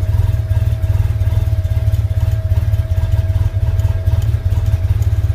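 Arctic Cat Wildcat Sport UTV engine idling steadily with a fast, even low pulse, just started on its new battery and running fine. A faint steady whine sits over it and fades out about four seconds in.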